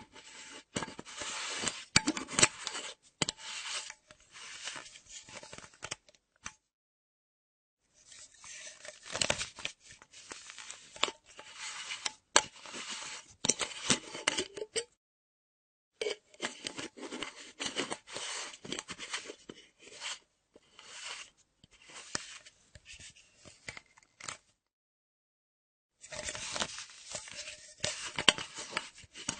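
Screw cap of a half-empty metal flask being unscrewed and screwed shut, the threads scraping and clicking. It comes in four takes, with dead silence between them about 7, 15 and 25 seconds in.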